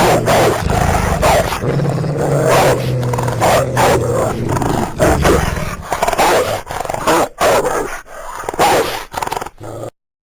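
Eurasian wolf growling in a quick run of short, loud outbursts, with a low steady rumble under parts of it. The sound cuts off suddenly just before the end.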